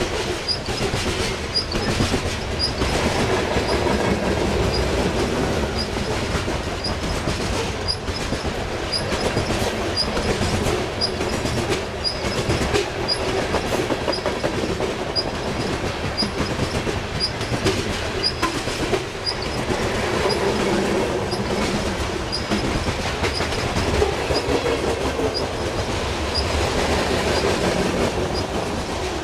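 Loaded coal hopper cars rolling past at steady speed: a continuous rumble with the clickety-clack of wheels over rail joints. A faint high chirp repeats steadily, a little faster than once a second.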